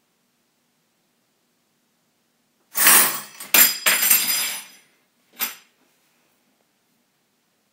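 Dishes, pans and cutlery in a plastic dish rack clattering and clinking loudly, several sudden knocks over about two seconds, then one shorter clatter a moment later.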